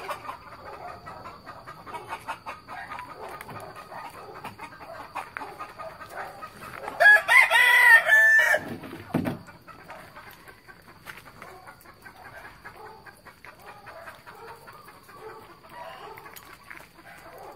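A rooster crows once, about seven seconds in, a loud call lasting under two seconds; chickens cluck quietly around it.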